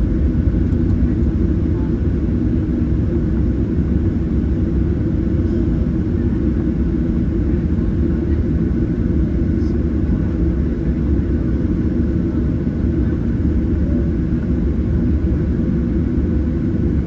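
Cabin noise of a Boeing 737-700 taxiing: a steady low rumble from its CFM56 engines at taxi power and the airframe rolling, with a faint steady whine.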